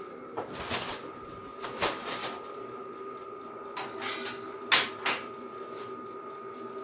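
8-kilowatt diesel air heater running: a steady whine from its blower, with about six short, irregularly spaced clicks on top.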